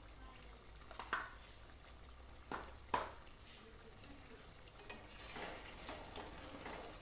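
Paneer and pea curry boiling and bubbling in a pot on the stove, a steady hiss with a few sharp knocks about a second and about three seconds in. From about five seconds in, a wooden spatula stirs the thick gravy and the sound grows busier.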